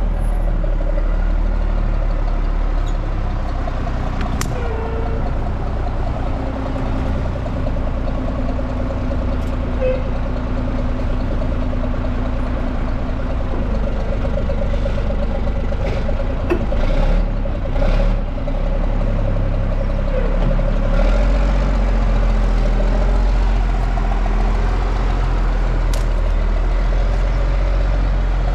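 Motor vehicle running steadily, a continuous low rumble of engine and road noise with a few faint clicks.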